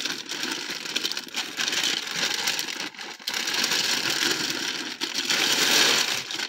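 A plastic packaging bag rustling and crinkling as it is handled and pulled open, an irregular noise with a few short pauses.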